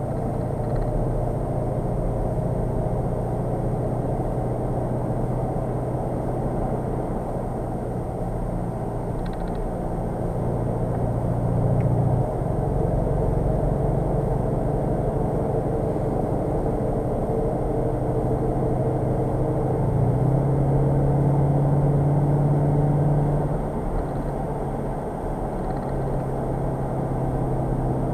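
Skoda Octavia RS 2.0 TDI four-cylinder diesel heard from inside the cabin while driving, a steady drone over tyre and road noise. The engine note climbs slightly and drops suddenly about twelve seconds in. It steps up again around twenty seconds in and eases back a few seconds later.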